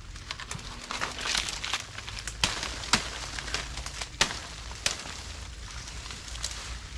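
Dry bamboo leaves and stems crackling and rustling, broken by four sharp cracks in the middle of it.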